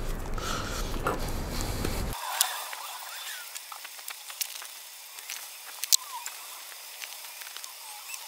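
Handling sounds of a rolled pork roast being trussed with kitchen twine on a wooden cutting board: scattered sharp clicks and soft rustles. A low rumble cuts off suddenly about two seconds in.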